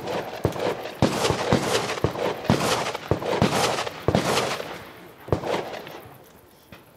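Rapid shotgun shots, about ten fired roughly half a second apart over five seconds, each followed by a ringing echo.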